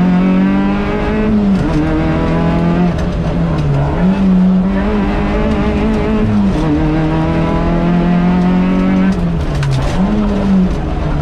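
Rally car's engine running hard, heard from inside the cabin, its pitch dropping and climbing back several times as the revs change through the corners.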